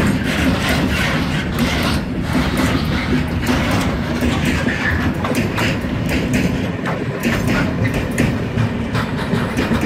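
Freight train of bulk-powder tank wagons rolling slowly past close by: a steady rumble of steel wheels on the rails, with repeated clicks and knocks as the wheelsets cross the rail joints.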